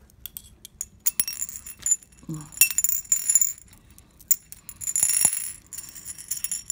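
Loose 8 mm green aventurine gemstone beads clinking and rattling onto a porcelain saucer in several bursts of quick clicks, each with a bright ringing tone from the china.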